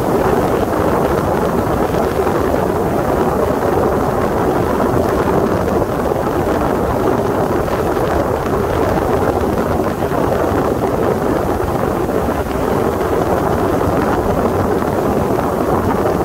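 Sea Ray 21 MC motorboat running steadily under way: a constant rush of wind and water noise with no changes in pace.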